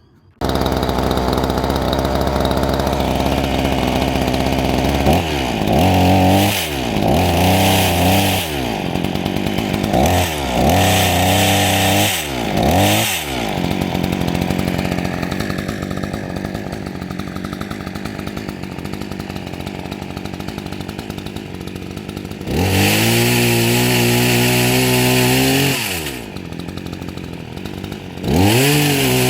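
Petrol chainsaw engine running, idling between revs. It is blipped up and back down about five times in quick succession, held at high revs for a few seconds, and revved again near the end.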